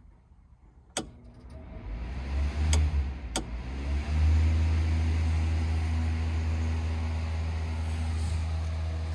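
Electric ventilation fan switched on with a click about a second in. Its motor hum builds as it spins up, with two more clicks along the way, then settles into a steady low hum.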